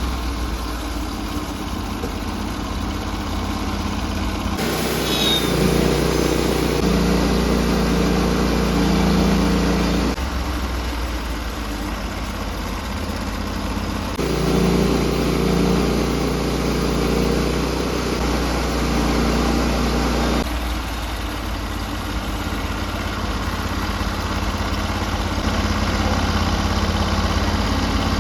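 Sawmill engine running steadily while black walnut is milled. In two stretches of several seconds each, starting about five seconds in and about fourteen seconds in, the sound comes in louder and fuller.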